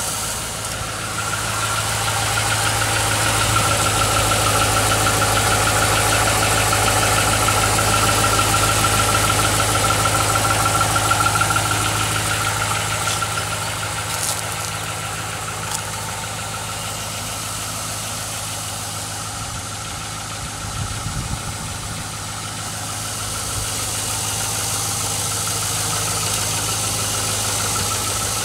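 Chevrolet Silverado's 5.3-litre V8 idling cold, a little louder for the first ten seconds or so, with a light knock that the owner identifies as piston slap, typical of GM's 5.3 engines at high mileage.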